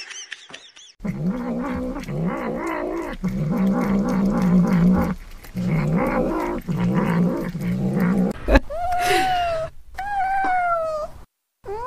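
A cat growling in a run of low, wavering yowls as it gnaws at hanging cured meat, the possessive growl of a cat over food. Near the end, two long meows that fall in pitch.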